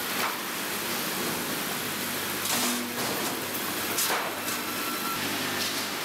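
Sawmill line machinery running: a steady mechanical noise of conveyors and saws with a low hum, broken by short hissing swishes about half a second in, around two and a half seconds and again at four seconds.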